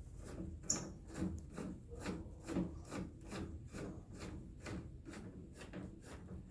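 Hand tool working fasteners tight, a short rasping stroke repeated about three times a second, as the number plate is refitted to the tow bar.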